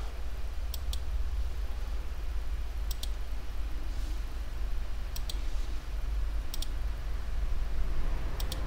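Computer mouse clicking every second or two, some clicks in quick pairs, over a steady low hum.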